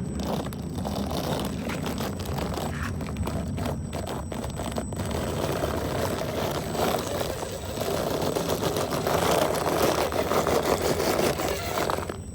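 1/10-scale RC rock crawler (Redcat Gen8) driving, its electric motor and gears whirring with some scraping and rattling. The running grows louder about halfway through.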